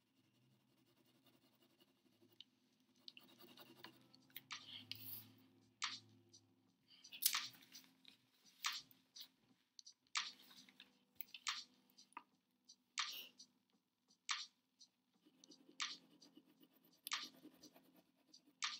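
Pen scratching across a sheet of paper on a wooden table in short shading strokes, one sharp scratch about every second and a half.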